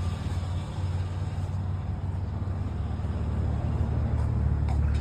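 A vehicle engine idling with a steady low rumble, with a few faint clicks about four to five seconds in.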